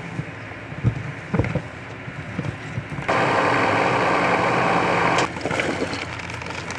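4x4's electric recovery winch running for about two seconds, starting and stopping abruptly as it drags rock out of the gully, after a couple of knocks of rock.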